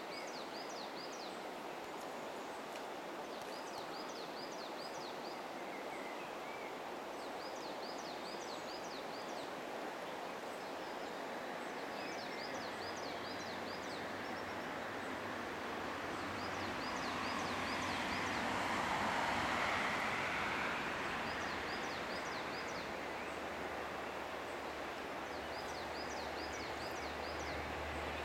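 River water flowing steadily, with a songbird repeating a short, quick trilled phrase about every four seconds. In the second half a low rumble from a passing vehicle builds, swells loudest a little before the end, then eases.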